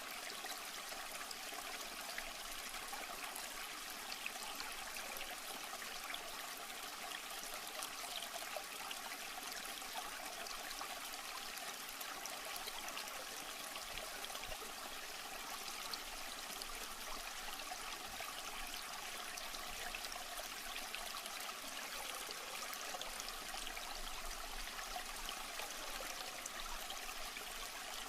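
Steady trickling and splashing of water, as from an aquarium filter's outflow running into the tank, unchanging throughout.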